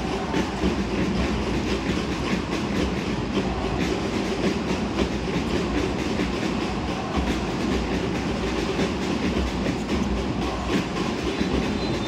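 Basketball game heard from the stands: a steady arena din with frequent short knocks of the ball bouncing on the hardwood court.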